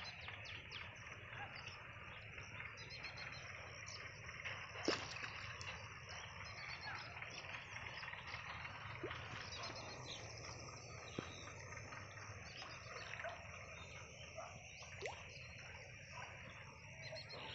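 Faint rural outdoor ambience: scattered high chirps over a low steady hum, with a few sharp clicks, the loudest about five seconds in.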